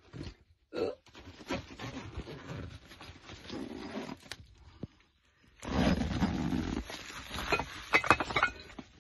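Handling noise as an insulated cooler bag is packed: rustling and scraping of the bag, with a loud patch of rubbing about two-thirds of the way through and a few sharp clicks near the end.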